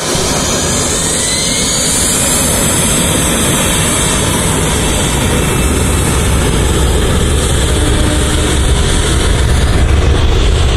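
Jet airliner engines whining and rushing, with a whine that rises in pitch over the first couple of seconds, heard over the rumble of a moving train, which grows stronger near the end.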